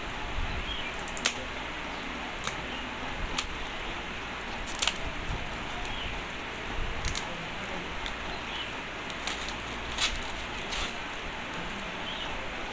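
Plastic shrink-wrap being cut and peeled off a small cardboard box: sharp crinkles and snips about once a second over a steady background hiss.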